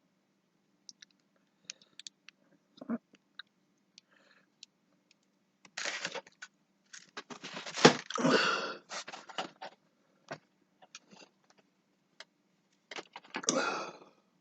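Handling noise: scattered sharp clicks and scrapes with bursts of crunchy rustling, loudest about eight seconds in and again near the end, over a faint steady hum.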